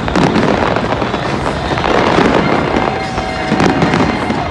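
Aerial fireworks going off in a continuous barrage: dense bangs and crackling with hardly a gap between bursts.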